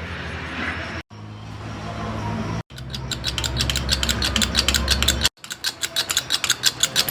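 Workshop machinery in several abrupt cuts: first a steady low hum, then, from a little over a third of the way in, a fast, even mechanical clicking of about seven or eight clicks a second.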